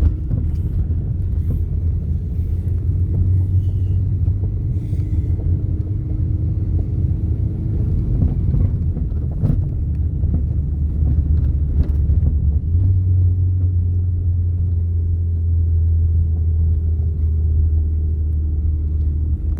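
Steady low rumble of a car on the move, with a few faint knocks.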